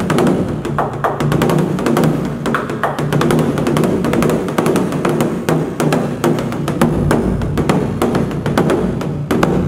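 Large Korean barrel drum (cheongo) struck rapidly and steadily with a wooden stick, several strokes a second, the skin's low ring sustaining beneath the sharp hits.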